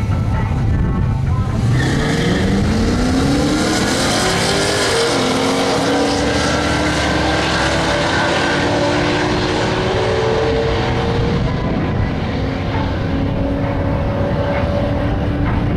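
Two cars launching off a drag-strip start line, a Pontiac Trans Am WS6's LT1 V8 and a Chevrolet S10 pickup, engines revving up hard under full throttle. The engine pitch climbs from about two seconds in, drops at an upshift about five seconds in, and the engines keep pulling as the cars run away down the track.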